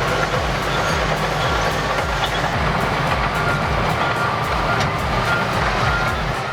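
Heavy diesel earthmoving machinery running under load, with a steady low pulsing engine sound.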